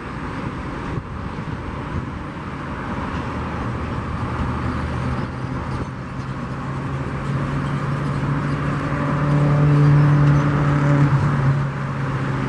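Jet airliner engines running as aircraft taxi: a steady rush of engine noise with a low hum that grows louder toward the middle, then eases a little.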